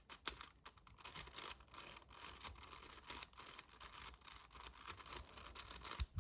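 Magnetic 7x7 speed cube being turned by hand: a quick, irregular run of faint plastic clicks and scraping as its layers snap into place.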